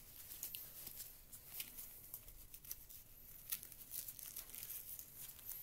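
Faint, irregular rustling and small scrapes of gym gloves being handled: fabric, padding and mesh rubbing as they are laid side by side.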